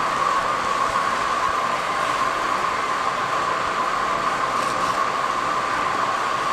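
Steady, unbroken background noise: an even hiss with a constant drone in it, no speech.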